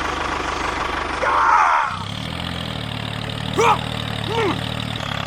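Small engine running steadily, its note changing abruptly about two seconds in. There is a brief voice-like cry before the change and two short rising-and-falling calls a little after it.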